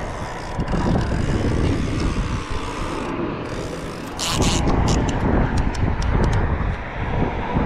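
Wind buffeting the microphone over steady traffic noise from cars on the bridge, with a cluster of short clicks and rustles about four seconds in.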